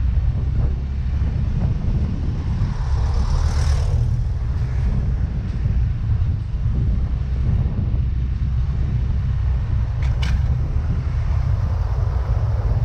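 Wind buffeting the microphone over the running of a Yamaha Mio Gravis scooter's single-cylinder engine while it is ridden, as a steady low rumble. A swell of noise rises and fades about three to four seconds in, and a sharp click comes about ten seconds in.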